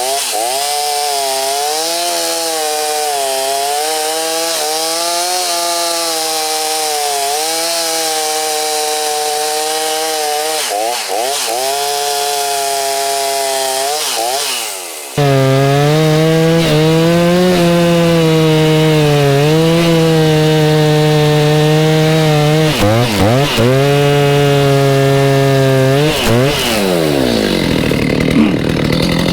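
Chainsaw cutting through a thick Manchurian walnut trunk. The engine pitch sags each time the chain bites into the wood and climbs back between cuts. The sound becomes louder and fuller about halfway through, and near the end the revs fall away.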